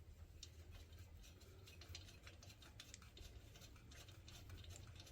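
Near silence with faint, irregular small clicks of hand tools working on nuts.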